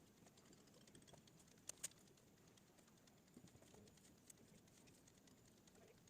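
Near silence with a few faint clicks of a computer mouse, two of them close together a little under two seconds in.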